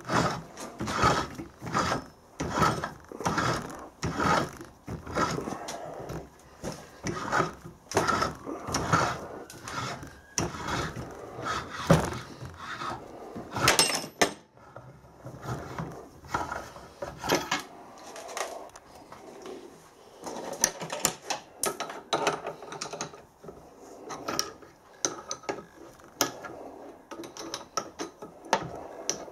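Adjustable hand reamer with a pilot guide being turned through steam-engine main bearings: repeated short scraping clicks as the blades cut and the wrench is worked round, about two a second at first, then sparser and softer in the second half.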